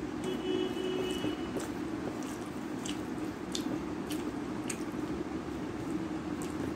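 Close-up eating sounds: wet squishing of rice being mixed by hand on a steel plate and mouth smacks while chewing, heard as sharp clicks about every half second to second over a steady low hum.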